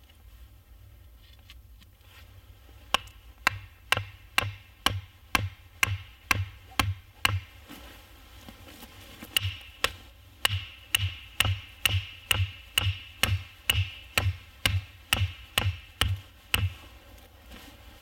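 Wooden stakes being hammered into the forest ground with steady blows, about two a second. A run of about ten knocks is followed by a short pause and then about sixteen more.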